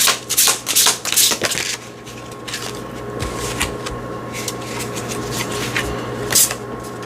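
A deck of tarot cards being shuffled by hand in quick, even strokes, about three a second, which stop about two seconds in. Softer rustling of the cards follows, with a few separate clicks and one sharper snap near the end.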